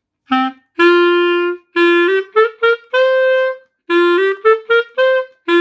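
Clarinet playing a short rising passage of the G major scale up to D, twice over. The quick notes go in pairs, two slurred legato and two tongued staccato, as a changed-articulation exercise for learning a hard passage.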